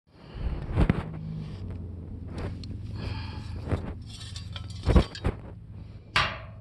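2006 Chevy Cobalt's engine running at a steady idle after a fuel pump replacement, the new pump having got it going again. Several sharp knocks and scrapes sound over the idle, the loudest about a second in and about five seconds in.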